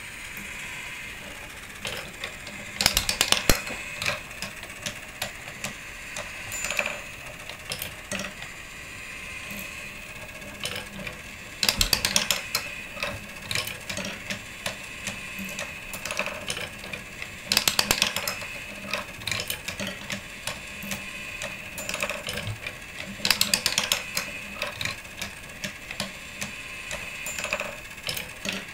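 Wooden marble machine running: glass marbles clacking and rolling along wooden tracks and through the lift, with loose clicks throughout and bursts of rapid clattering several times, over a faint steady hum.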